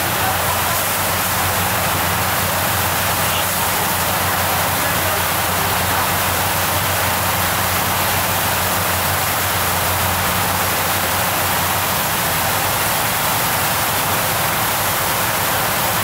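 Steady rush of churning water from a riverboat's wake, over the low, even drone of the boat's engine.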